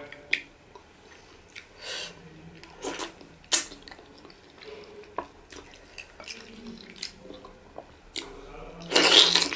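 Close-up eating sounds of pounded yam fufu, soup and meat being eaten by hand: scattered sharp, wet smacks and squishes from fingers and mouth, with chewing. A longer, louder noisy burst comes near the end.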